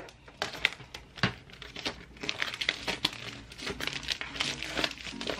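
Clear plastic wrapping crinkling and rustling while it is handled and pulled off, with many sharp clicks and crackles.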